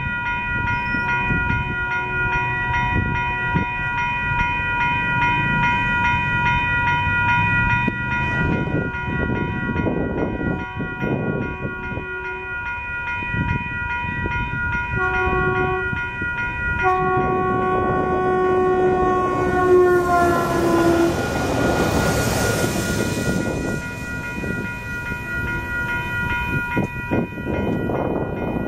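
Passenger train horn sounding several blasts as the train approaches. The last long blast drops in pitch as the train passes, followed by a loud rush of the train going by. A steady ringing tone sounds throughout.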